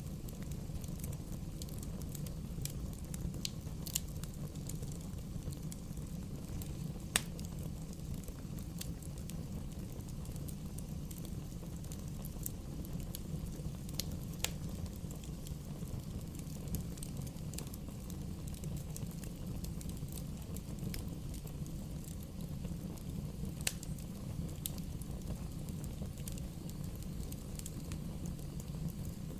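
Wood bonfire burning: a steady low rumble of flames with scattered small crackles and a handful of sharper pops.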